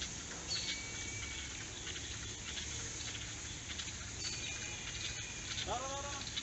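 Soft rustling and patter of a nylon cast net as it is thrown and drops onto the grassy bank. Under it runs a steady low hum, with scattered high chirps and a short call near the end.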